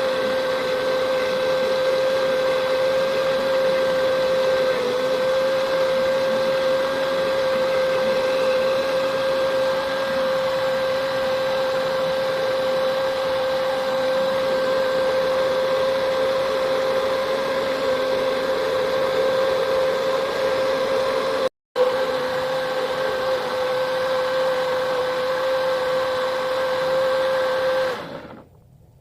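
Electric kitchen blender running steadily with a high motor whine, grinding turmeric, ginger, temulawak and kencur rhizomes into a herbal mix; it stops about a second before the end.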